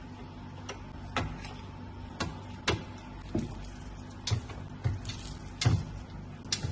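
Irregular knocks and clunks of things being handled and set down, about a dozen spread unevenly, the loudest near the end, over a steady low hum.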